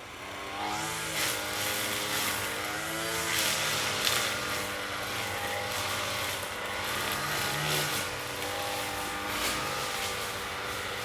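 Lawn mower engine running, its pitch rising about half a second in and then wavering up and down.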